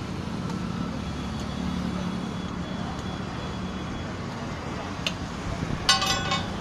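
Steady low rumble of roadside traffic, with a sharp tick about five seconds in and a brief ringing clink of steel utensils and cookware near the end as momos are moved from the steamer to a steel plate.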